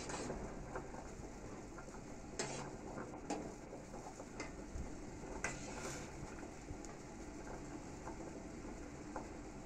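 Rosogolla balls boiling in sugar syrup in a steel pot, a steady bubbling, while a steel spoon stirs them and clinks against the pot several times.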